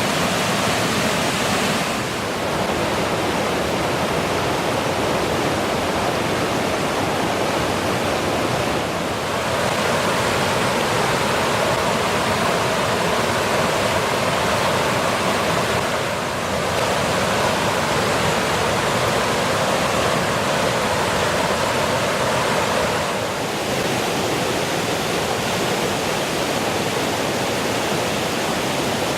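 Water rushing steadily down a short, multi-tiered rocky cascade waterfall. The sound dips briefly and shifts slightly about every seven seconds.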